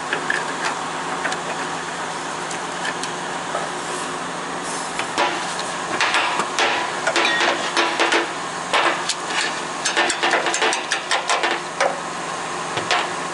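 Hand tools working on the truck's cab shock-absorber mount: a run of sharp metallic taps and clicks over a steady background, coming thickest in the second half.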